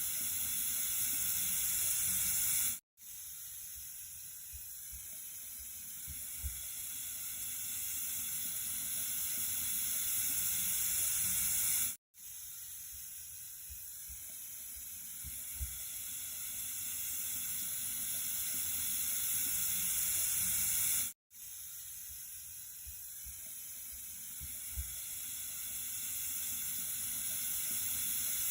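Water flowing in a steady hissing rush, mostly high-pitched. It drops out for an instant about every nine seconds and restarts, growing slowly louder each time: a short recording looped end to end.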